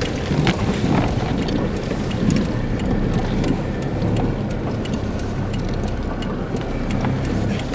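A vehicle driving over a rough, sandy dirt track, heard from inside the cabin: steady engine and tyre rumble with frequent small rattles and knocks as the body jolts over the bumps.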